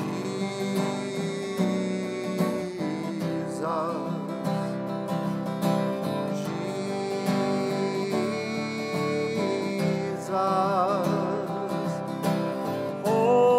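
Acoustic guitar strumming an instrumental interlude of a slow worship song, with a sustained, wavering melody line coming in twice.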